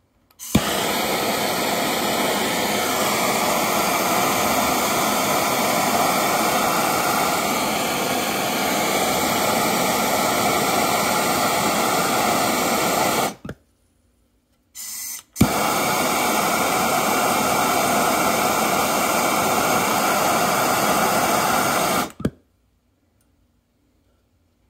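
Handheld gas plumbing torch burning with a loud, steady hiss while heating a copper pipe joint for soldering. It lights with a sharp click, burns for about 13 seconds, goes off, sputters briefly, then lights again with a click and burns for about 7 more seconds before it is shut off.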